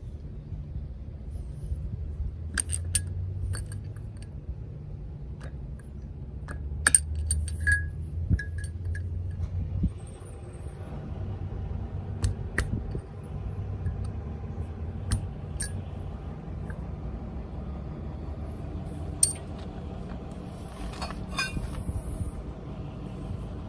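Scattered sharp metallic clinks and taps of hand tools and small metal parts being handled, with a short jingling rattle near the end, over a steady low hum.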